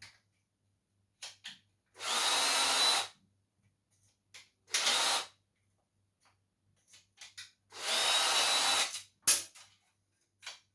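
Cordless drill-driver backing screws out of computer scrap in three short runs of whirring, about a second, half a second and a second long, with a whine riding on each. Light clicks and one sharp metallic clack of parts being handled come between the runs.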